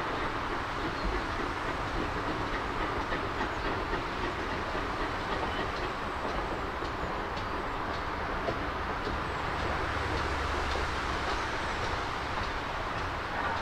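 A steam-hauled GWR autocoach train, with a pannier tank locomotive, running past on the rails. It makes a steady rolling noise with faint wheel clicks over the rail joints, and the clicks come more often in the second half.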